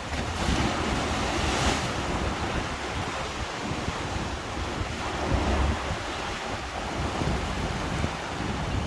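Choppy sea waves breaking and washing ashore, heavy seas stirred up by a distant super typhoon, with a louder wave crash about a second and a half in. Wind gusts buffet the microphone with a low rumble.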